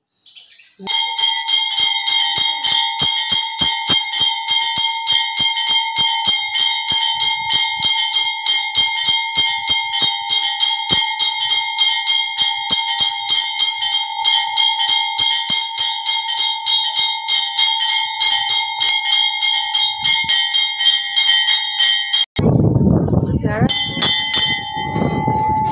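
Hanging metal temple bell rung over and over by a pulled rope, a steady clanging ring made of rapid, evenly spaced strikes. Near the end the ringing breaks off for a moment under a burst of low rumbling noise, then starts again.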